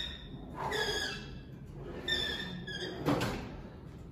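Cable machine squeaking in short bursts as the cable runs over its pulleys, then a single thunk about three seconds in as the weight stack is set down.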